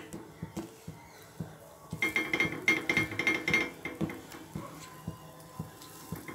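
A metal spoon clinking and tapping against a metal vessel as batter is spooned into the wells of a paniyaram pan: a quick run of ringing clinks about two seconds in, with lighter scattered knocks around it.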